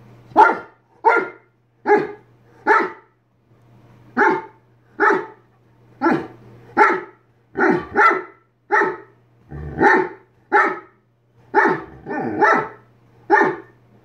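Bernese mountain dog barking in a long run of short woofs, about one to two a second, some in quick pairs, with its muzzle at a cardboard box: calls to coax a cat hiding inside out to play.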